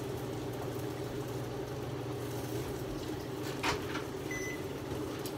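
Steady low mechanical hum with a faint hiss. A light click a little past halfway, then a brief high beep.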